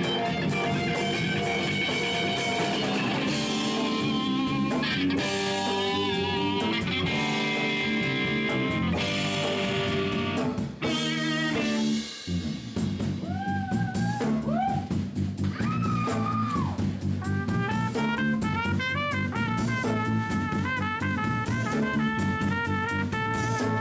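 Live rock band playing: an electric guitar leads over drums and bass, with a short break about halfway. A trumpet takes the lead toward the end.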